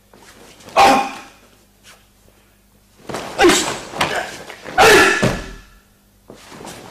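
Karate pairs exchange on a mat: sharp kiai shouts together with thuds of stamping feet and bodies and the snap of gi cloth. There is one loud burst about a second in, then a second burst from about three to five and a half seconds in.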